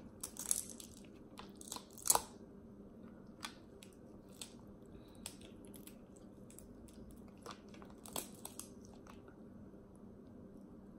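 Snow crab leg shells cracking and snapping as they are broken apart by hand: a scattered run of sharp cracks, the loudest about two seconds in, with softer ones later.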